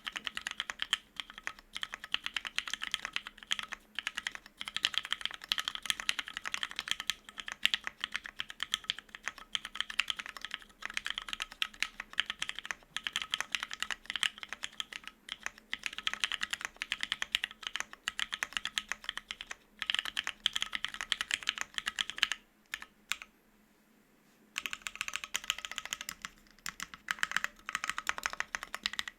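Steady fast typing on a gasket-mount Bear 65% Ergo mechanical keyboard with lubed, filmed Hyperglide Cherry MX Black linear switches on a polycarbonate plate, GMK double-shot ABS keycaps and no foam. The keystrokes come as a rapid stream of clacks, broken by a pause of about two seconds toward the end.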